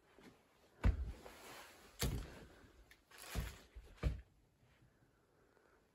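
Four dull thumps about a second apart, the third drawn out into a short scraping rustle.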